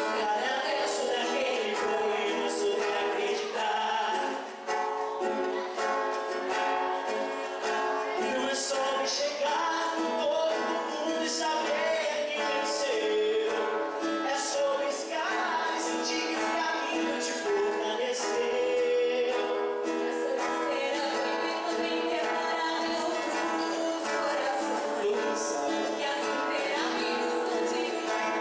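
A man and a woman singing live into microphones, accompanied by a single acoustic guitar.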